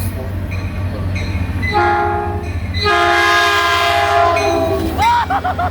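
A Caltrain locomotive's multi-chime air horn sounding a short blast and then a longer, louder one of about two seconds over the steady low rumble of the passing train. Near the end a few short wavering pitched sounds follow.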